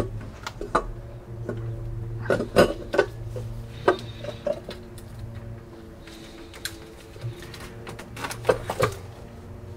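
Metal intake parts and fasteners clinking and knocking as they are handled and fitted in a diesel engine bay: scattered light clinks, a cluster between about two and three seconds in, a sharp knock near four seconds and another cluster near the end, over a steady low hum.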